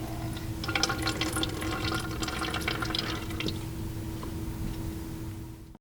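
Clutch fluid mixed with air spitting and dripping out of the open bleed screw on the slave cylinder as the power bleeder pushes the line through, a crackle of small splashes that thins out after about three seconds.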